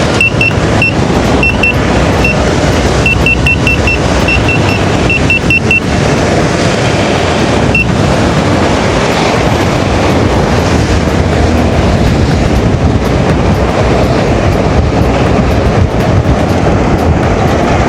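Heavy wind noise on the microphone of a Begode Master Pro electric unicycle riding at high speed. Short, high-pitched alarm beeps come in quick pairs and runs over the first six seconds, with one more about eight seconds in.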